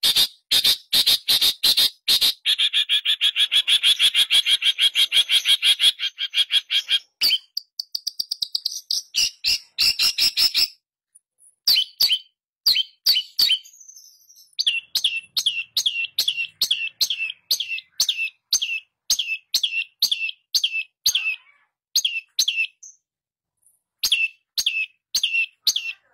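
Long-tailed shrike (pentet) singing. It opens with a fast, dense chattering run, and after a short pause gives a long series of sharp, downward-slurred notes at about three a second.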